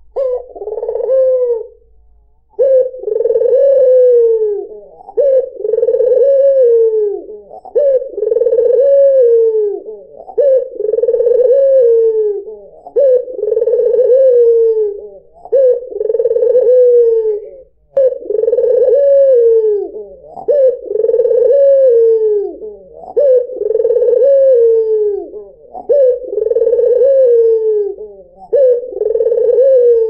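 Albino ringneck dove (white 'puter') cooing over and over: each call is a long coo that falls in pitch, repeated about every two and a half seconds after a short pause near the start.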